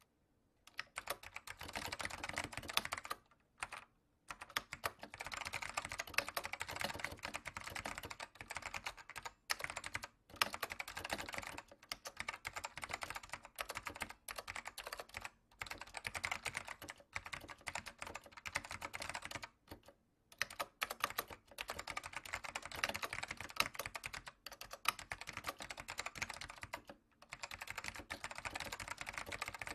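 Fast, continuous typing on a computer keyboard: rapid key strikes in runs of several seconds, broken by brief pauses.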